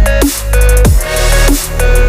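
Loud electronic dance music with a heavy bass and repeated sweeps that drop steeply in pitch.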